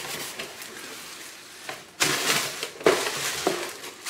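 Rustling and crinkling of a shopping bag being handled, quieter at first and louder from about halfway through, with a few sharp clicks.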